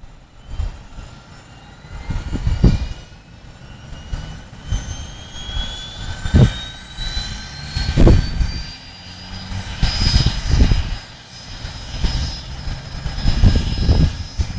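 Helicopter turbine whine rising steadily in pitch over about ten seconds, over an uneven low rumble that surges every second or two.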